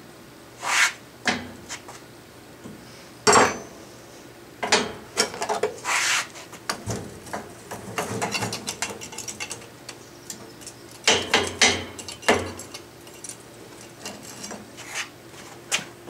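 Breaking a fresh aluminium casting out of a rectangular aluminium flask. A hand tool knocks and scrapes the packed foundry sand loose in irregular knocks and gritty scrapes, with one sharp clank about three seconds in.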